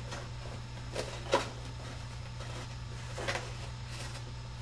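A few brief, faint scrapes and knocks of a pencil and hand against cardboard as the inside outline of a cardboard box is traced onto a cardboard sheet, over a steady low hum.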